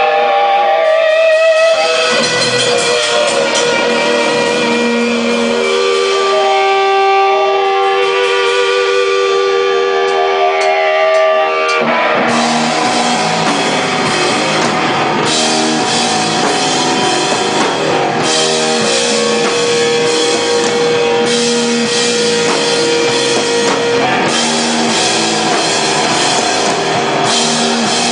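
Loud live hardcore rock band. For about the first twelve seconds electric guitars hold long, wavering notes, then the drum kit and the full band come in.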